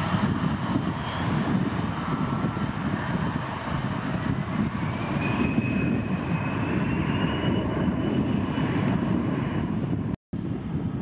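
Jet airliner engines running with a low rumble and a whine that rises in pitch over several seconds. The sound cuts out briefly near the end.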